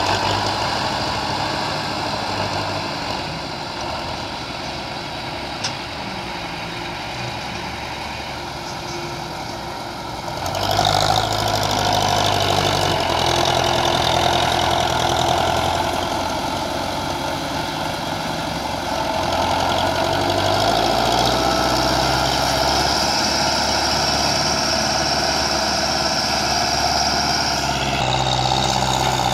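Belarus 510 tractor's diesel engine running hard under load. About ten seconds in it gets suddenly louder and higher, and it stays up.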